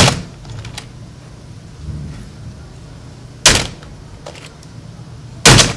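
A glass bowl full of jelly knocked down onto a computer keyboard: three loud knocks, near the start, about three and a half seconds in, and near the end, with a few fainter key clicks between.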